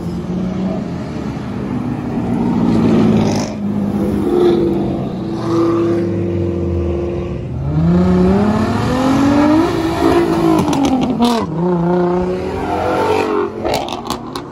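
Cars accelerating away from a car meet: a steady engine drone, then one engine revving up in a long rising pitch, dropping sharply at a gear change and climbing again. A few sharp cracks near the end.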